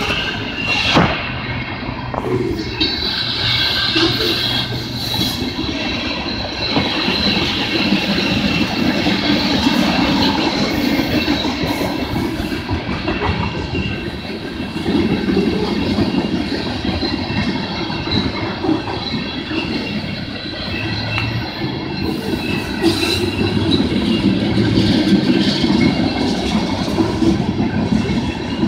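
Tank cars of a BNSF ethanol freight train rolling steadily past, steel wheels clattering over the rails, with a steady high ringing running over the rumble.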